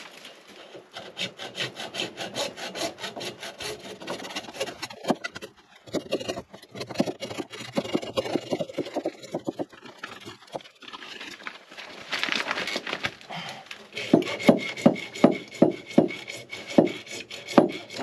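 Hacksaw cutting through a plastic water pipe in quick back-and-forth strokes, with two short pauses. In the last few seconds the strokes slow to about two a second and get louder.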